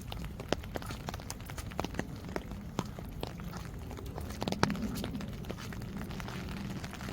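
Rain falling, with irregular sharp drips and taps close by, several a second, over a steady low rush; the loudest tap comes about halfway through.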